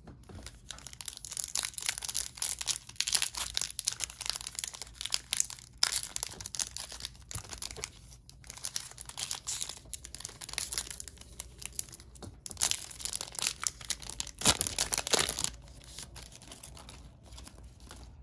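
Trading card pack wrapper being torn open and crinkled by hand, in irregular bursts of crackling with short pauses. The loudest crinkle comes near the end, after which it quietens.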